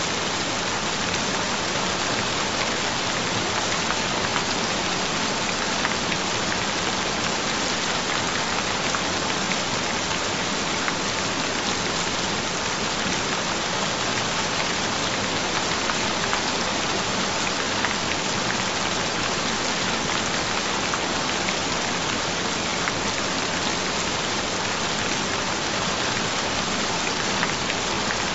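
Steady rain falling on a surface, an even hiss with scattered individual drop ticks.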